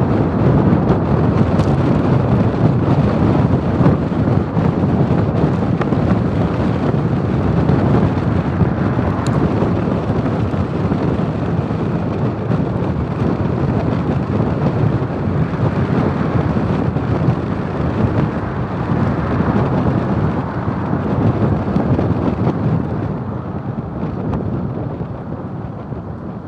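Wind buffeting the microphone of a roof-mounted camera on a moving camper van, a heavy steady rumble mixed with road and tyre noise. It dies down over the last few seconds.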